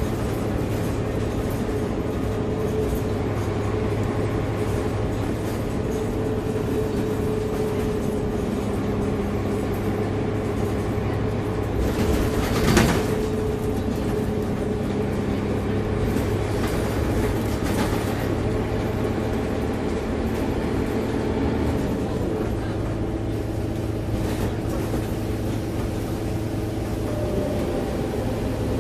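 Scania K280UB bus's rear-mounted diesel engine and drivetrain running steadily under way, heard from inside the passenger saloon over road noise. A brief louder knock or rattle comes about thirteen seconds in.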